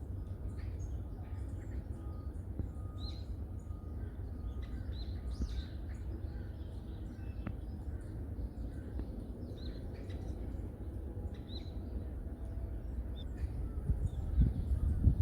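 Small birds chirping in a forest: short, high calls repeating every second or so, over a steady low rumble. A few loud low thumps come near the end.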